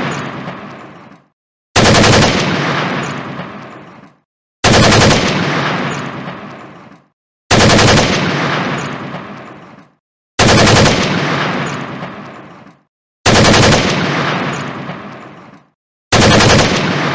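AEK-971 assault rifle firing short automatic bursts, six of them about three seconds apart, each a fast rattle of shots with a long echoing tail that dies away into silence before the next.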